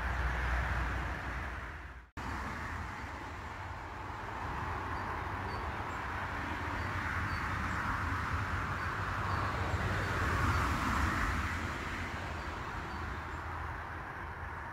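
Steady hiss of road traffic, tyres on asphalt, swelling as vehicles pass about ten seconds in and easing again near the end. The sound drops out for a moment about two seconds in.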